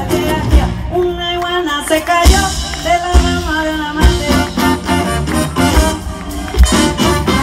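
Live band with a lead singer playing through a concert PA, heard from within the audience: held and gliding sung notes over a full band, with heavy bass drum hits.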